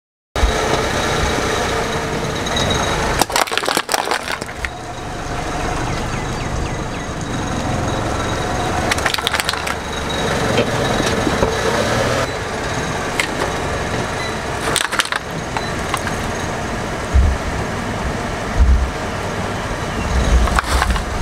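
A car tyre rolling over and crushing aluminium drink cans and plastic juice bottles: a series of sharp cracks and crunches, in separate clusters, over a steady background noise, with low thumps near the end. It starts after a brief silence.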